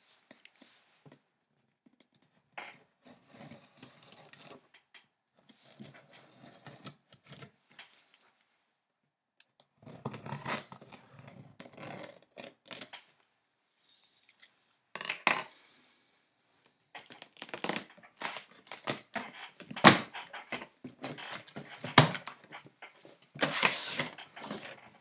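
Packing tape on a large cardboard box being cut and the box flaps pulled open: irregular scraping, rustling and crinkling of cardboard with scattered clicks, growing busier in the second half, and two sharp knocks near the end that are the loudest sounds.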